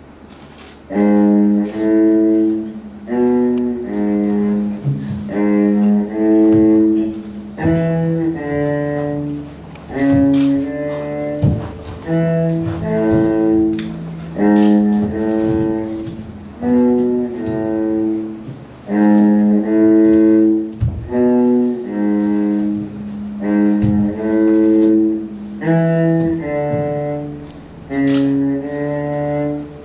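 Music of low bowed string notes, held one to two seconds each in slow repeating phrases, starting about a second in.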